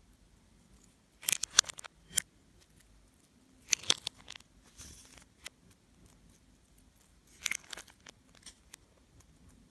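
Slime being worked by hand, giving three bursts of sharp crackling pops and clicks, about a second and a half, four and seven and a half seconds in, with a softer squish just after the second.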